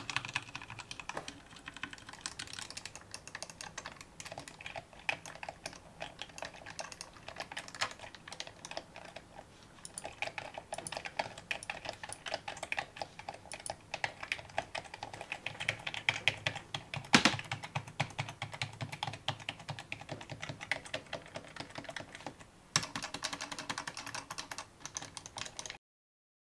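Continuous rapid typing on a gaming keyboard, dense key clicks and clacks with one louder key strike midway. It stops briefly near the end, resumes, then cuts off suddenly.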